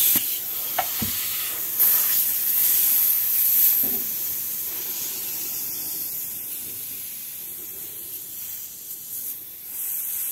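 Green gas hissing into a WELL G74 gas-blowback AK magazine as it is charged from a can. It then keeps hissing out of the magazine, slowly fading: the magazine's seals are leaking hard.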